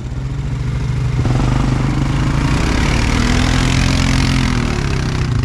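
ATV engine revving under load in four-wheel drive through mud, with the wheels spinning. The engine note steps up about a second in and holds with a loud hiss over it, then eases off near the end.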